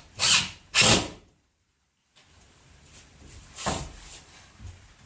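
A power tool run in two short, loud bursts, then the sound cuts out completely for about a second. It comes back as quieter shop noise with one more brief burst near the four-second mark.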